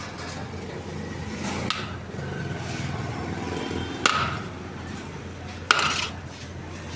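Two sharp metallic knocks about a second and a half apart, each with a short ring, over steady background noise.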